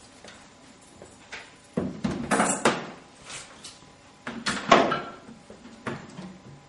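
A metal carrying case set down on a wooden side table and handled open: knocks, clicks and rattling clatter in two bursts, about two seconds in and again about four and a half seconds in.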